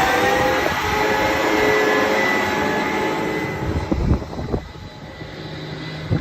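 A vehicle engine accelerating, its whine rising steadily in pitch, then fading away about four seconds in. Low gusts of wind on the microphone and a few knocks follow.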